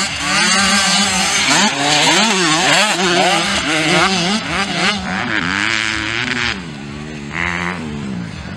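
Engines of small youth motocross bikes revving up and easing off as two or more race over the dirt track, the pitch swinging up and down with each throttle change. It is loudest in the first half, with a brief higher-pitched whine about seven seconds in.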